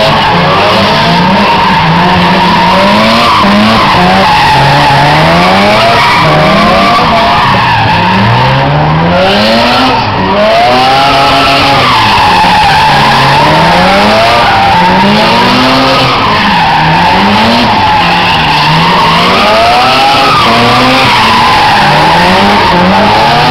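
Two drift cars, a Mazda RX-7 and a Nissan Silvia S15, drifting in tandem: engines revving up and down over and over as the drivers work the throttle, over continuous tyre squeal and skidding.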